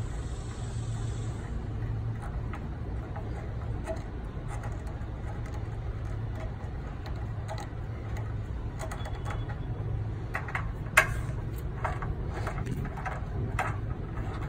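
Light clicks and knocks of hand tools and metal parts being handled during reassembly of the engine's throttle linkage, more frequent in the second half, with one sharp click about eleven seconds in, over a steady low hum.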